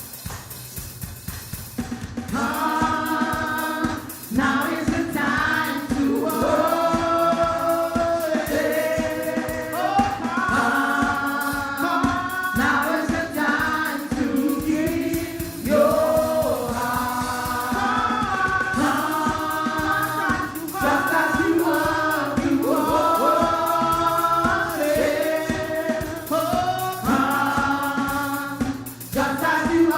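Gospel worship song: a choir singing in harmony over a drum kit keeping a steady beat. The voices come in about two seconds in.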